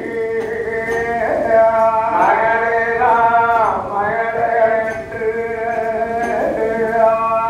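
A man singing a Tamil folk ballad in long, held phrases that slide between notes, in a chant-like style. Faint light ticks fall about once a second.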